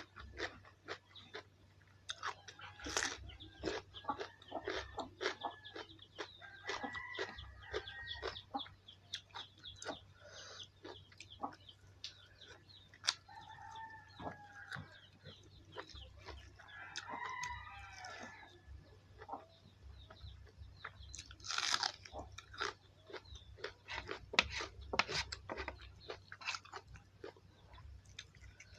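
Close-up chewing and crunching of food, many sharp crunches throughout, while chickens call in the background several times.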